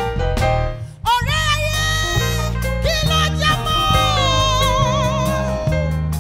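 Live gospel music: a woman sings long held notes with vibrato over a band with a steady bass line. The band drops out briefly about a second in, and the voice enters with upward scoops.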